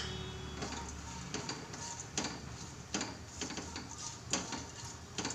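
Chopped almonds frying in hot ghee in a nonstick kadai: a steady low sizzle under irregular scrapes and taps of a silicone spatula stirring them.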